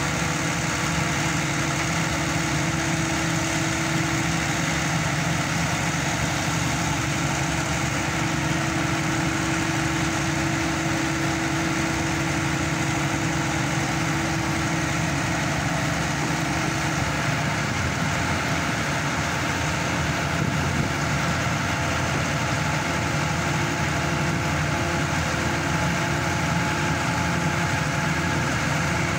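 Engine and hydraulic power pack of a hydraulic static pile driver running steadily. A little over halfway through, a steady hum in its sound breaks into a regular pulsing.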